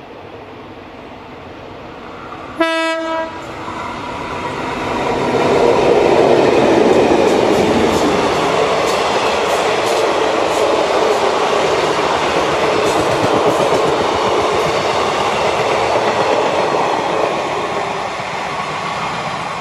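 A short single blast of a B class diesel locomotive's horn about two and a half seconds in. Then a diesel-hauled passenger train passes at speed, engines and wheels loud, with repeated clicks of wheels over rail joints, easing off near the end.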